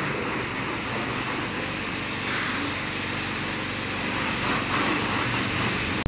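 Steady rushing hiss of a pressure-washer water spray on a car in a wash bay.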